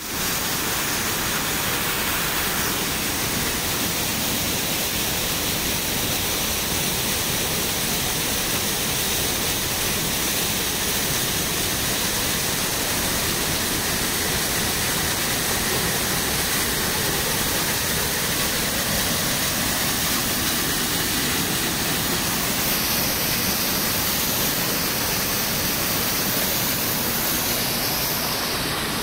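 Small waterfall pouring between boulders into a shallow rocky stream, a steady rush of water close by.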